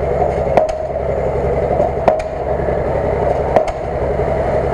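Lada Niva's engine running hard and steady as the 4x4 churns its wheels in deep mud and water. A few sharp knocks break through the drone at irregular intervals.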